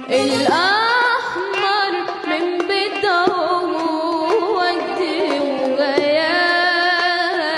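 A young girl singing an Arabic song into a microphone. She slides up into a phrase right at the start, ornaments it with quick wavering turns, and holds a long note near the end.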